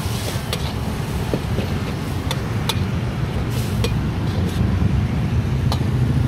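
Metal spatula scraping and clinking against an iron wok as noodles are stir-fried, with sharp irregular clinks and a light sizzle. A steady low rumble runs underneath.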